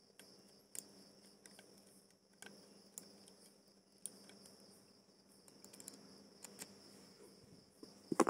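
Scattered light clicks and taps of a screwdriver and small screws as a fishing reel is unscrewed and taken apart, with a sharper clatter near the end. Crickets chirp steadily in the background.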